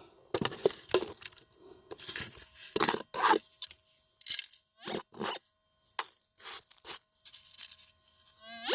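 Dirt and gravel being poured and shaken out of a digging scoop over a metal detector's coil: irregular scraping, crackling rattles in separate pours with short pauses between them, over a faint steady tone.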